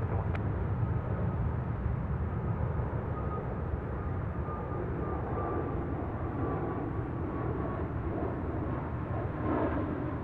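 Jet engines of a JetBlue Airbus A320-family airliner at takeoff thrust as it climbs away after departure: a steady low rumble with a faint whine that slowly falls in pitch.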